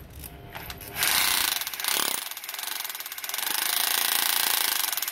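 Hammer drill in hammer mode running with a nail-driver attachment fitted, giving a fast, even hammering. It starts about a second in, eases briefly, then runs on steadily.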